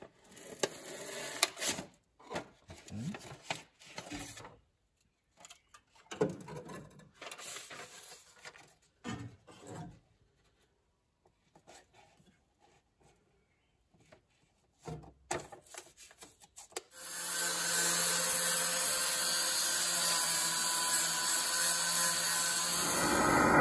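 Stiff paper template being pressed, rubbed and creased by hand against a rusted steel floor pan: irregular rustles and taps with short pauses. About 17 seconds in, an angle grinder starts grinding the steel bodywork and runs steadily and loudly.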